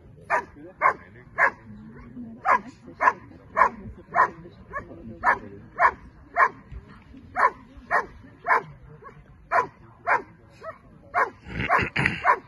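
Giant schnauzer barking steadily at the helper in the blind during the hold-and-bark exercise of protection work. The barks are sharp and come about two a second, with short pauses, and there is a louder burst near the end.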